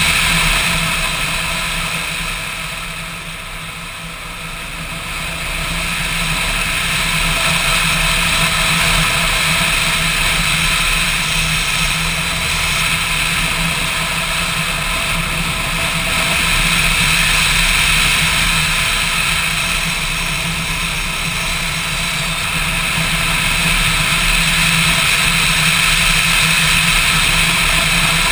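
Motorcycle engine running steadily under way, with wind and road noise over it. The engine sound eases off about three seconds in and builds back up by about six seconds.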